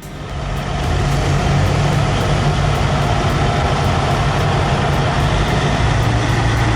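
Heavy truck engine running steadily, fading in over the first second.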